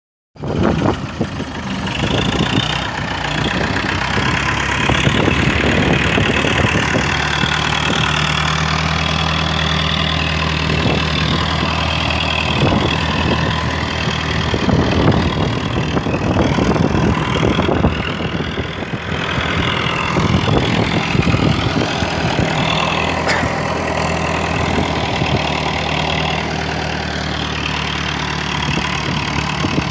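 Old IFRON front-end loader's diesel engine running steadily while it works, its level dipping briefly a little past halfway.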